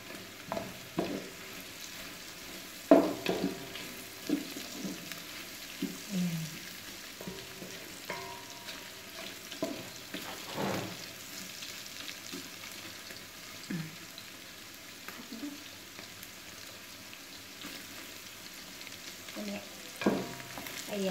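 Beef, onion and hotdog sizzling as they sauté in a large metal pot, being toasted brown. A wooden spatula scrapes and knocks against the pot as the food is stirred, with the loudest knock about three seconds in.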